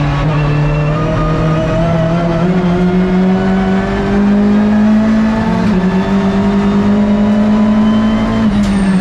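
Hyundai i30 N TCR touring car's turbocharged four-cylinder engine heard from inside the cockpit at racing speed. The note climbs gently over the first half, dips slightly just past halfway and then holds steady, over road and wind noise.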